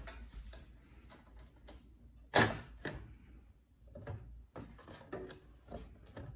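Knocks and clicks of a motherboard being handled and fitted into a metal PC case, with one louder knock about two and a half seconds in.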